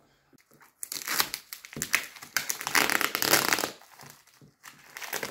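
Plastic wrapping on a cardboard parcel crinkling and rustling as it is handled and opened by hand, in a long spell of about three seconds and a shorter one near the end.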